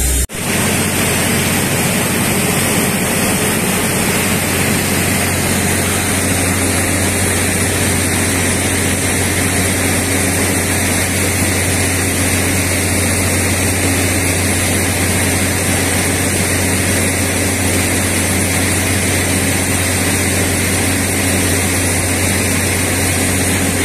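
Truck-mounted water-well drilling rig running steadily: an even engine drone with a low hum and a hiss, as water is circulated down the drill pipe to flush dirt from the bottom of the hole.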